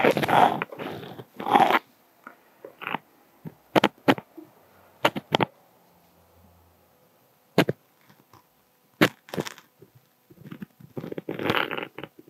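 Close handling noises at a fly-tying vise: bursts of rustling near the start and again near the end, with a scatter of sharp clicks and taps between, as a feather is fitted to the hook and tied down with thread.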